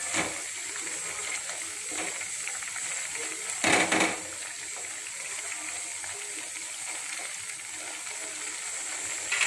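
Vegetables simmering in a little water in a steel kadai, a steady hissing bubble, stirred with a wooden spatula, with one brief louder scrape about four seconds in.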